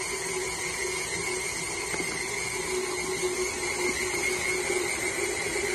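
KitchenAid Artisan tilt-head stand mixer running steadily, its motor giving a constant hum with a high whine as the beater mixes cake batter.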